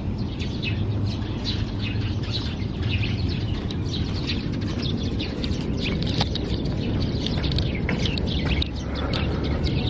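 Small birds chirping, many short calls scattered throughout, over a steady low noise.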